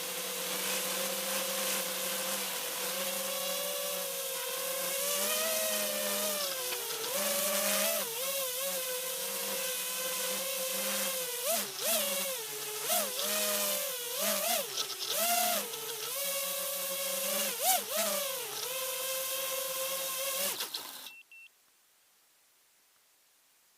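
FPV racing quadcopter's brushless motors and propellers whining, the pitch rising and falling with throttle and dipping in quick blips in the second half, with wind hiss. The sound cuts off suddenly about 21 seconds in.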